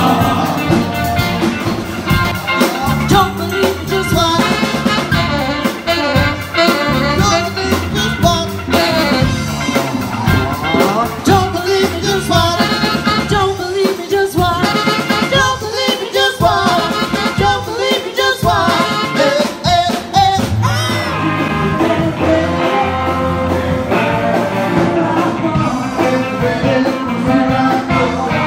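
Live funk and rock band playing a song: saxophone, electric guitar, bass and drum kit, with a lead singer.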